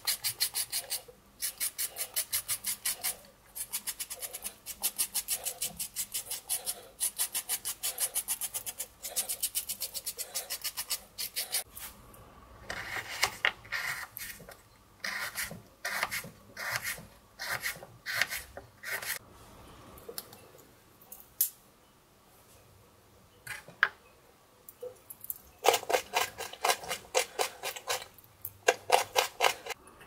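Toothed blade of a Victorinox Swiss Army knife scraping the skin off a carrot in quick, even strokes, several a second. Partway through, the strokes turn slower and separate, with a quieter pause and a few clicks. A fast run of strokes returns near the end.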